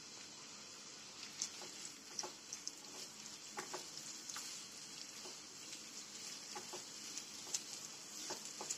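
Sliced onions frying in oil in a nonstick kadai: a faint, steady sizzle, with scattered light scrapes and taps of a spatula stirring them.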